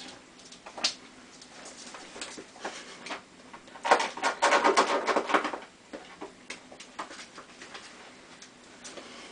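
A ferret scrabbling over a bath mat on a tiled floor and burrowing under it: irregular scratching, rustling and clicking, busiest for about a second and a half near the middle.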